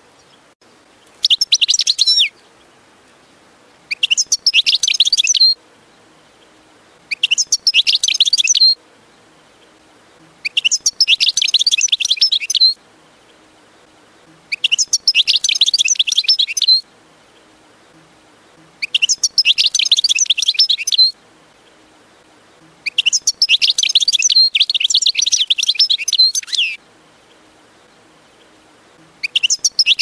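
European goldfinch singing in repeated phrases of rapid, high, twittering song, each one to four seconds long with pauses of about two seconds between: eight phrases in all, the last starting near the end.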